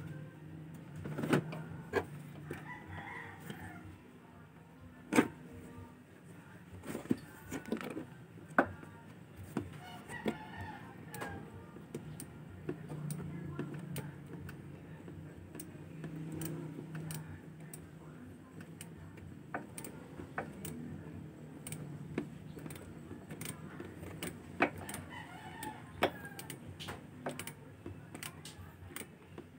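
Scattered sharp clicks and knocks of parts and tools being handled on a Honda Click 125 scooter engine around the valve cover, over a low steady hum. A rooster crows in the background now and then.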